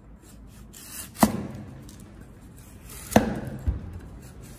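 Chinese cleaver chopping down the side of a peeled spring bamboo shoot onto a wooden cutting board, shaving off the bud nodes. There are two sharp chops, about a second in and about three seconds in, each with a brief ring.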